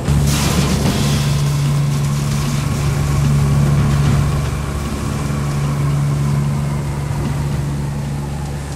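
Steady drone of the Lockheed WP-3D Orion's turboprop engines in flight, with rushing air noise. The drone starts abruptly, and a fainter higher whine sits above it.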